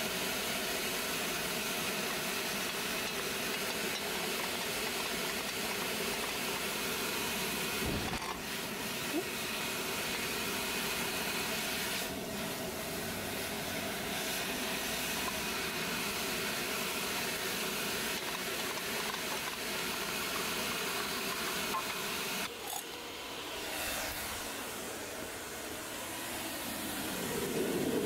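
Steady hiss and hum of a forge running, while a red-hot saw-steel knife blade is quenched in a pipe of oil, hissing as the oil flares up.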